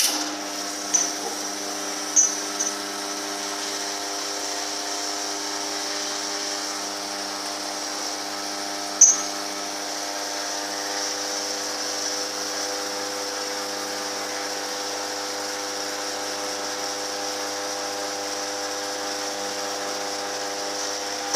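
Lavazza hybrid espresso machine's pump running steadily with an even hum while it brews an espresso shot from a capsule, starting and stopping abruptly. A few short clicks come in the first seconds and about nine seconds in.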